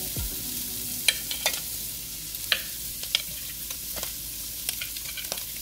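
Shrimp frying in a pan: a steady sizzling hiss with scattered sharp crackles and pops.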